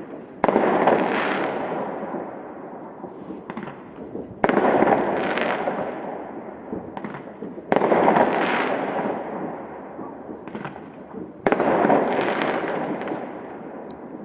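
Fireworks salute: four sharp shell bursts three to four seconds apart, each followed by a long rolling rumble that fades away, with a few smaller pops in between.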